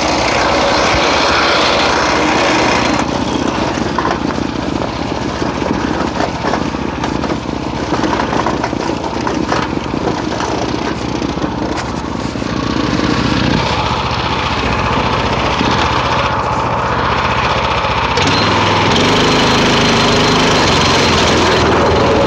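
Speeco 212cc single-cylinder four-stroke engine on a go-kart running during a test drive, its speed and pitch changing several times with the throttle and growing louder again near the end.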